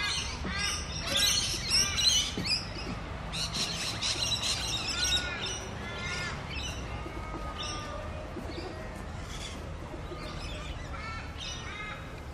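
Birds chirping and calling, many short repeated chirps overlapping, busiest in the first few seconds and thinning out after.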